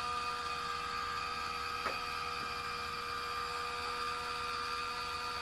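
Fan-Tastic Vent roof vent's electric lid motor running with a steady whine as it drives the outside lid open.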